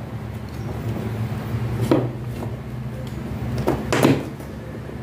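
Hard plastic cabinet panels knocked and pressed into place by hand. There are three sharp knocks, about two seconds in, near three and a half seconds, and the loudest about four seconds in, over a steady low hum.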